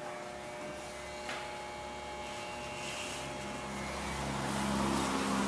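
Electric hair clippers buzzing steadily during a haircut, with a lower hum growing louder near the end.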